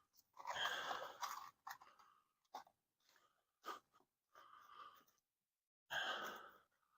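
Faint, irregular scraping and rustling noises in about six short bursts, as the metal exhaust outlet pipe is handled and set in position.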